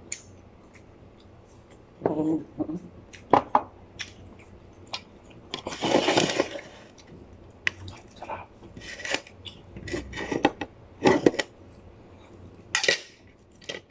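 Spoon and dishes clinking, with scattered short clicks and knocks on plates during a meal, and one longer, louder noise about six seconds in.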